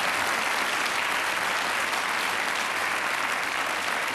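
Studio audience applauding steadily, a dense even clapping with no voices over it.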